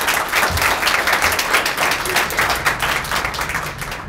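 Small audience applauding, many hands clapping at once; the clapping thins out near the end.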